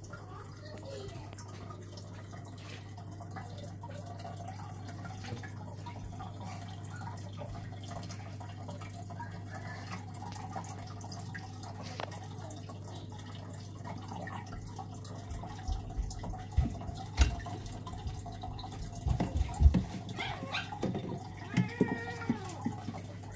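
Aquarium water dripping and trickling over a steady low hum from the tank's equipment, with a run of knocks and bumps in the last third.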